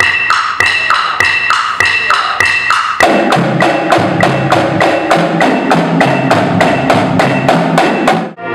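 Marching band percussion playing an even, quick rhythm of sharp woodblock-like strokes, with lower pitched parts joining about three seconds in. It cuts off abruptly near the end.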